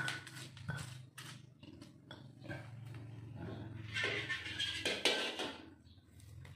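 Stone pestle grinding a spice paste in a stone mortar (cobek and ulekan): a few knocks of stone on stone near the start, then rough scraping strokes, the loudest about four to five seconds in, over a low steady hum.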